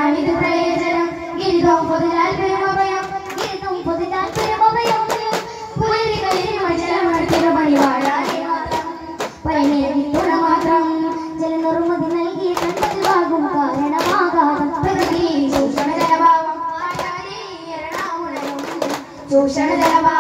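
Boys singing a devotional song in chorus for a daff muttu performance, with sharp strikes on hand-held daf frame drums scattered through the song.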